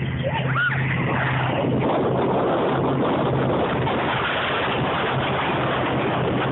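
Blizzard wind blowing as a steady rushing noise, with a low steady hum underneath.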